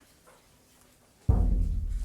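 A single deep drum stroke from the ensemble's percussion, about a second and a quarter in, after a near-silent start; it is loud and rings on as it fades.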